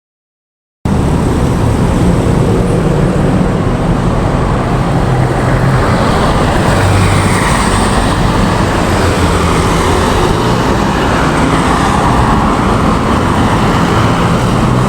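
Steady motor-vehicle noise with a low engine hum, starting abruptly about a second in.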